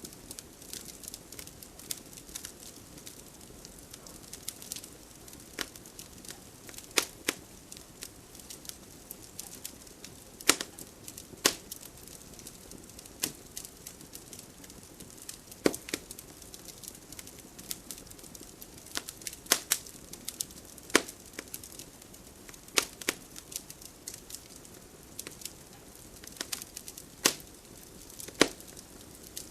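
Fire in a fireplace crackling: irregular sharp pops and snaps, a dozen or so louder ones scattered through, over a faint steady hiss.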